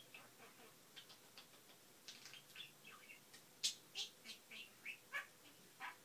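Budgerigar chattering: a quick, irregular run of short high chirps and squeaks, sparse at first and busier from about two seconds in.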